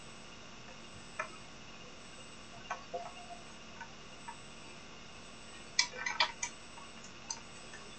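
Faint, irregularly spaced light clicks and tinkling clinks over a steady hiss, with a quick cluster of brighter clinks about six seconds in.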